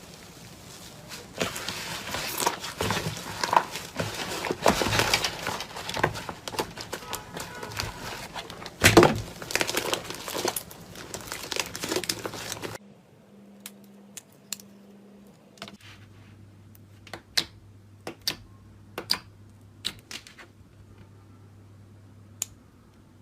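Slime being squeezed and worked by hand, giving a dense run of crinkly crackles, clicks and pops. About 13 s in it cuts abruptly to a quieter stretch with scattered single sharp pops, one or two a second.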